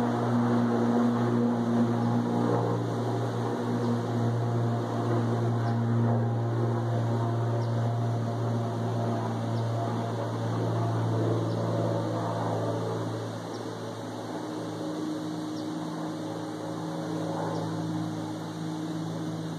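Propeller airplane engine droning steadily overhead, with a hum that gets quieter and shifts slightly in pitch about two thirds of the way through.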